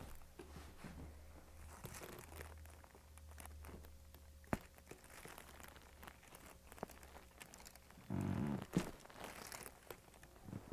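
Soft rustling and crinkling with a single sharp crack about halfway through, the joint crack of a chiropractic adjustment. A short low vocal sound follows near the end.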